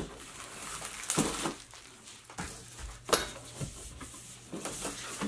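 Packaging being handled while a keyboard is unboxed: uneven rustling and crinkling with a few sharp knocks, the loudest about a second in and about three seconds in.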